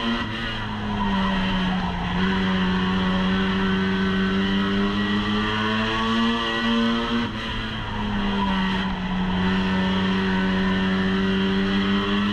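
Super Beez stock car's engine at racing speed, heard from inside the cockpit: the engine note drops twice as the car goes through the turns and climbs again down the straights. A steady hiss of tyre and road noise runs under it.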